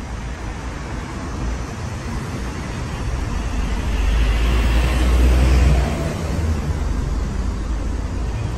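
Street traffic with a heavy concrete mixer truck's engine running close by, a steady deep rumble that swells loudest about four to six seconds in.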